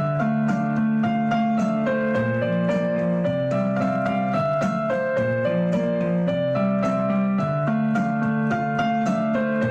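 Background piano music, a steady stream of notes over changing chords.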